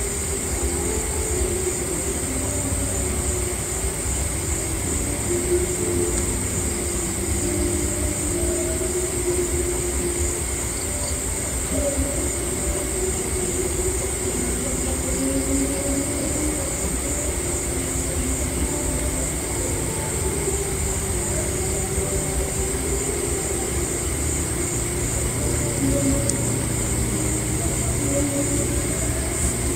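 Night insects chirring in a steady high-pitched band, over a steady low rumble and slow, drawn-out low tones.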